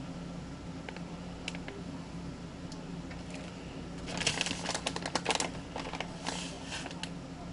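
Handling noise: quick light clicks and rustling, densest about four seconds in, with a shorter burst near six seconds, over a steady low hum.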